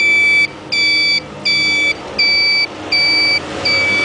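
Turn-signal buzzer of a Green Baby electric scooter beeping for a right turn: six even, high-pitched beeps, about one every three quarters of a second.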